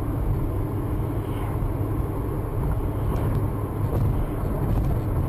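Steady engine and tyre rumble of a moving car, picked up by a dashcam inside the cabin.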